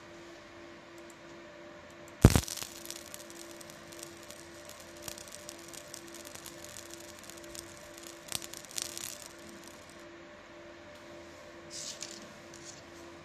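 A 20 W fiber laser marking machine marking a clear plastic dental aligner: one sharp click about two seconds in, then about eight seconds of irregular crackling ticks, over the machine's steady hum. A short faint crackle comes again near the end.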